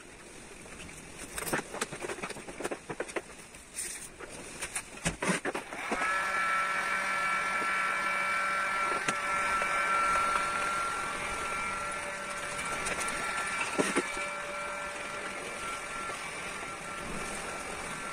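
Light tapping and handling noises, then about six seconds in an electric heat gun comes on and runs steadily with a whine from its fan. It is heating the carbon-fibre vinyl wrap to mould it around the car roof's edge.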